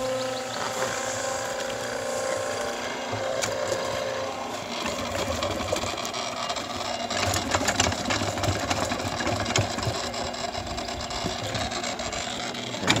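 Portable cement mixer running with its drum tipped, emptying mortar into a wheelbarrow. A steady motor hum is heard at first; from about three seconds in, wet mortar slides and scrapes out of the turning drum, with scattered knocks.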